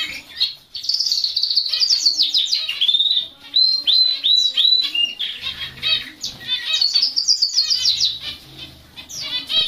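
Domestic canary singing, a loud continuous song of rapid trills and repeated whistled notes that glide up and down, with a couple of brief pauses.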